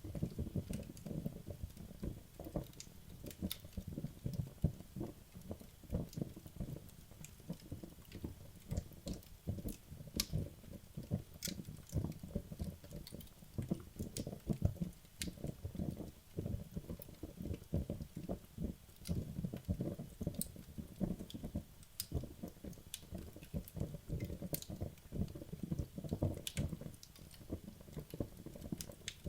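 Wood logs burning in a fireplace: a steady low flutter of flame with irregular sharp crackles and pops from the burning wood.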